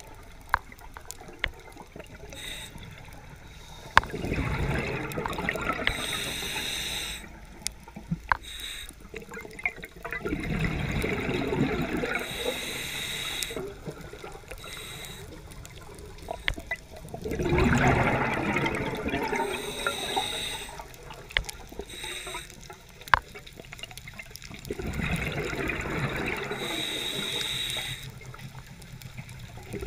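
Scuba diver breathing through a regulator underwater: four bursts of exhaled bubbles gurgle out, each about three seconds long and some seven seconds apart, with quieter inhalations between them. Scattered sharp clicks are heard throughout.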